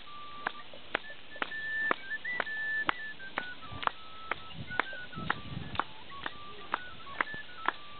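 Dance tune played as a melody of single high piping notes stepping up and down, over a steady sharp tap about twice a second.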